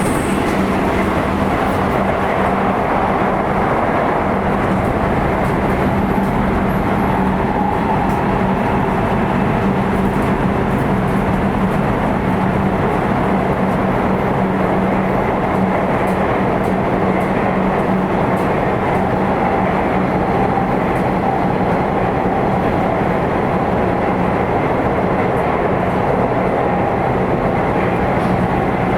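Sotetsu 8000 series electric train with GTO-thyristor VVVF traction equipment running at speed, heard from inside motor car MoHa 8224. Steady rolling and running noise carries a constant low tone, with faint scattered ticks over it.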